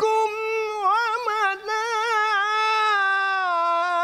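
A man's voice in melodic Qur'an recitation, holding one long high note with quick ornamental turns about a second in, then sustained steadily and stepping down in pitch near the end.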